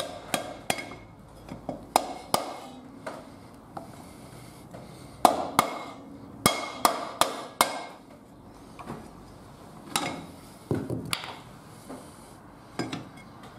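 A mallet tapping a cast-iron brake drum onto its hub: a dozen or so sharp knocks in short runs with pauses between. The drum is hanging up on the new brake shoes because of the wear lip on its inner edge.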